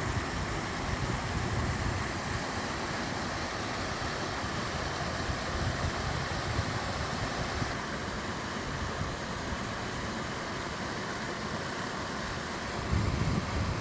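Waterfall on a mountain stream: water rushing steadily with a low rumble. The hiss changes slightly about eight seconds in, and the rumble swells near the end.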